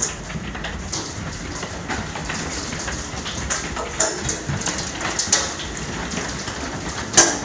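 Large hailstones, golf-ball size, pelting a house window with steady rain, heard from indoors: a constant hiss with many irregular sharp hits and one especially loud hit about seven seconds in.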